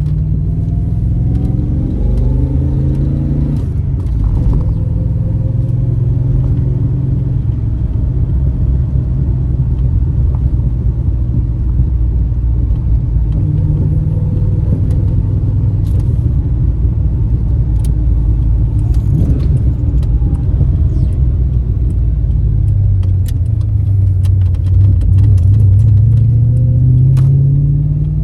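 Holden 5.0-litre 304 V8 of a 1995 VS SS Commodore pulling under way: the engine note climbs in the first few seconds, drops at a gear change, holds fairly steady at a cruise, then climbs again under acceleration near the end.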